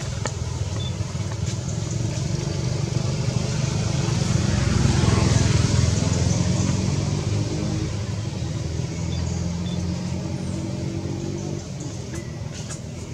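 A motor vehicle's engine running: a low rumble that swells to its loudest about halfway through and then slowly fades.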